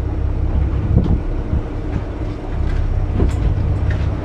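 Fishing boat's engine running with a steady low drone, under wind and water noise.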